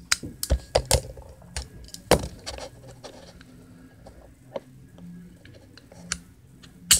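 Sharp metallic clicks and clacks of a .380 pistol's parts being handled and worked apart during disassembly. They come in a quick cluster in the first two seconds, then a few scattered clicks later on.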